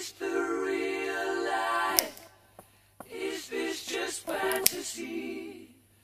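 A woman singing on her own without accompaniment: one long held note, then a few shorter phrases, with a steady electrical hum underneath. There are sharp clicks about two seconds in and again past the middle.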